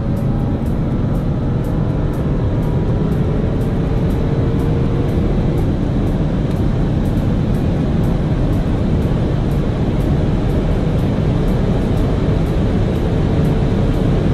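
Porsche twin-turbo engine at full throttle, heard inside the cabin under heavy road and wind roar at over 170 km/h. Its pitch climbs slowly, with one upshift partway through.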